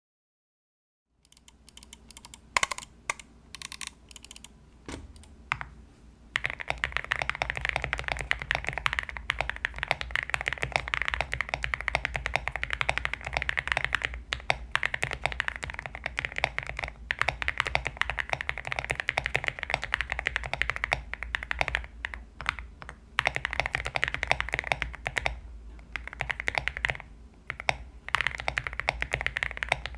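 Typing on a Zuoya GMK67 mechanical keyboard with KTT Kang White linear switches, XDA keycaps and a three-layer tape mod, built to sound thocky. After a second of silence a few scattered keystrokes come, then about six seconds in fast continuous typing starts, broken by a few short pauses.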